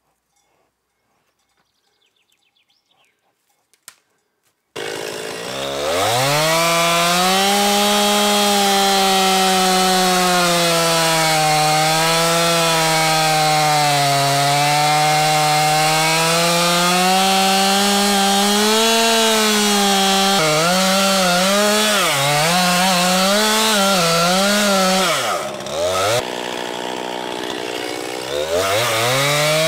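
Near silence with a few faint ticks, then about five seconds in a Stihl two-stroke chainsaw starts at full throttle. Its pitch sags and recovers as it saws through a fresh pine log. Later it rises and falls in short revs, drops low toward idle, and revs back up near the end.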